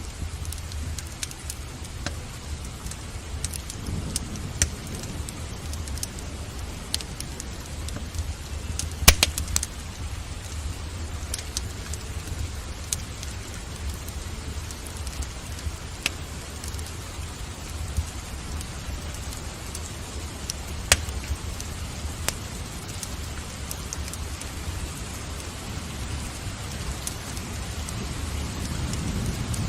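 Wood fire in a fireplace crackling, with scattered sharp pops, the loudest about nine seconds in, over steady rain and a low rumble.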